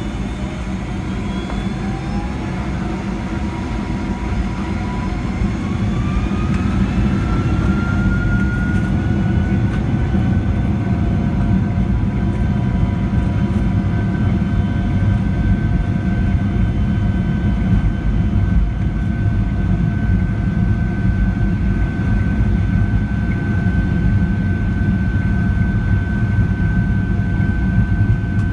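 Boeing 757-300's jet engines heard from inside the cabin as thrust is added: a whine rises in pitch over the first several seconds and then holds steady, while the overall engine noise grows louder and a steady low rumble continues underneath.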